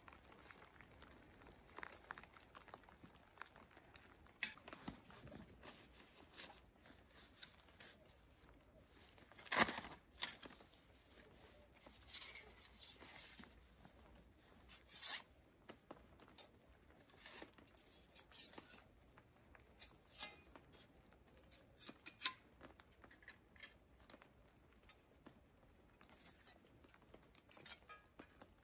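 Scattered scrapes, rustles and light clicks as split kindling and the thin metal panels of a kindling stove are handled and set out, with a sharper scrape about ten seconds in.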